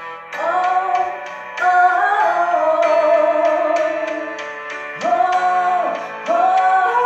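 A singer belting a wordless vocal run of long held notes that swoop up into each phrase, over a piano-and-guitar accompaniment.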